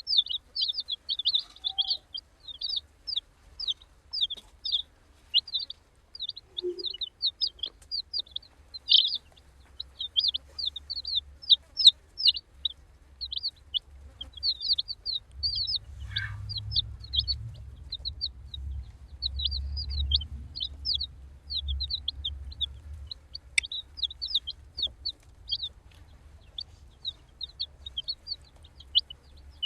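A group of baby chicks peeping without pause: short, high chirps that fall in pitch, several a second. A low rumble sits under them from about halfway to three quarters of the way through.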